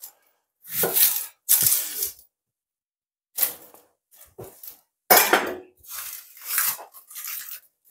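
Kitchen knife slicing through a raw onion onto a bamboo cutting board: a series of short, crisp crunching cuts at irregular intervals. Near the end the onion slices are broken apart by hand.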